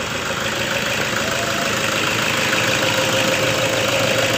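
Toyota Innova 2009's 2.5-litre 2KD-FTV four-cylinder common-rail diesel idling steadily, with a steady high whine over it. It has just been restarted after its intake and EGR were cleaned, and it is still cold, warming up.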